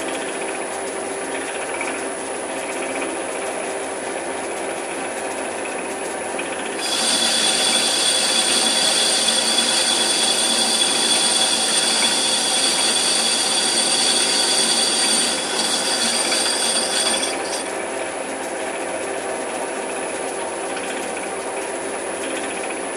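Raglan 5-inch metal lathe running steadily with its spindle and gear train whining. About seven seconds in, as the carriage moves along the work under the screwcutting feed, the sound gets louder with a high-pitched hiss and whine. It drops back to the plain running sound at about sixteen to seventeen seconds.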